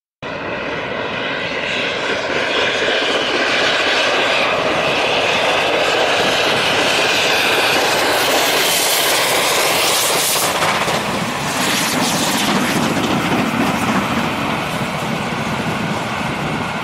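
Two LMS Black Five steam locomotives hauling a passenger train past at speed, working hard with a continuous loud exhaust roar. The coaches rumble by on the rails in the second half.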